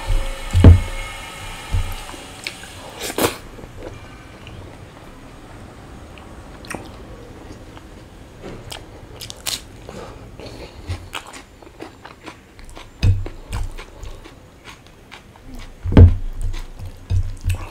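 Close-miked eating sounds: chewing and biting with wet mouth clicks as rice and chicken curry are eaten by hand. A few dull thumps stand out about a second in and near the end.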